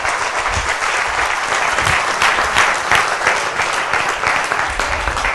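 An audience applauding steadily, many hands clapping at once, welcoming a presenter.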